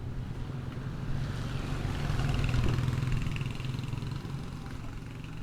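A motor vehicle's engine passing close by, growing louder to a peak about halfway through and then fading away.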